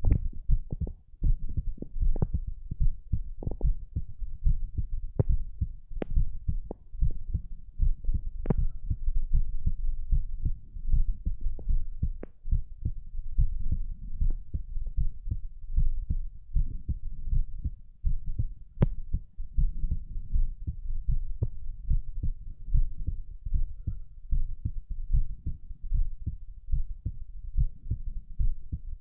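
A person's heartbeat recorded close up: a steady run of low thumps, with a few sharp clicks now and then.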